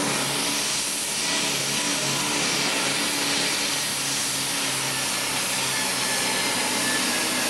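Turbocharged diesel engine of a Super Stock pulling tractor running flat out under load as it drags a weight-transfer sled: a loud, steady, unbroken roar.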